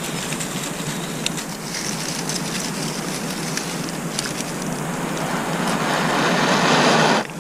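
Dry grass and stalk fibres rustling and crackling as hands tear and rub them into a tinder bundle, with scattered small snaps. Over the last two seconds a louder rushing noise builds, then cuts off suddenly.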